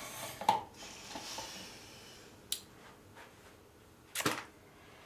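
An orange half being twisted on a plastic hand citrus juicer, a wet rasping for the first second and a half, then a few sharp knocks of handling on the counter, one about half a second in and another about four seconds in.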